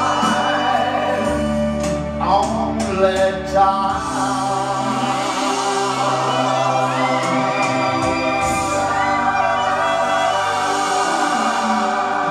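A man singing into a microphone, holding long sustained notes over a recorded musical accompaniment with choir-like backing voices.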